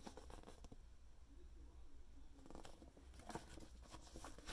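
Near silence with a faint low hum, and a few soft paper rustles and clicks in the second half as the pages of a paperback picture book are handled and turned.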